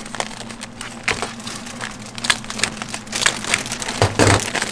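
Clear plastic candy bags crinkling and rustling as gloved hands handle and label them, in short irregular crackles with a louder burst about four seconds in. A steady low hum runs underneath.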